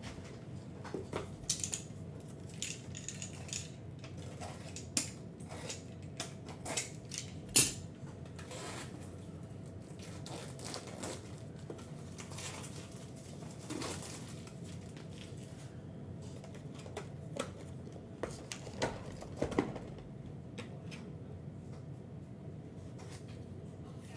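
Rigid plastic toploader card holders and trading cards being handled: scattered light clicks, taps and rustles, a few sharper knocks among them, over a steady low hum.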